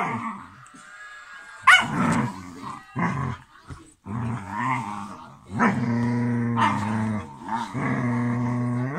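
Dog growling in a run of long, drawn-out grumbles, each a second or more, with short gaps between them and a sharper onset about two seconds in.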